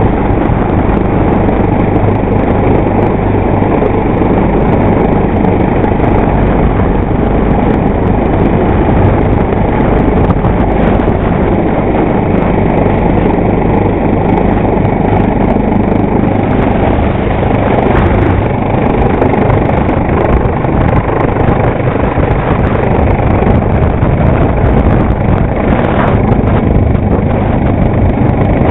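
Coastguard AgustaWestland AW139 helicopter hovering low overhead: loud, steady rotor and turbine noise.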